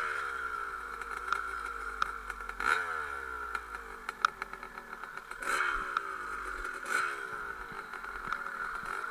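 1991 KTM 250 dirt bike engine blipped up and falling back several times as the bike slows, each rev sliding down in pitch, with scattered knocks and clatter from the bike on rough gravel.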